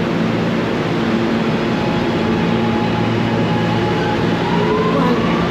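Subway train running in the station: a steady rumble with a whine that rises slowly in pitch near the end as the train picks up speed.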